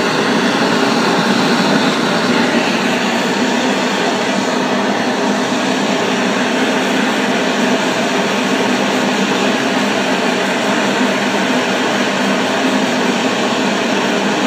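Gas blowtorch burning steadily: a loud, even rushing hiss with no breaks, heating the bronze for a copper nitrate patina.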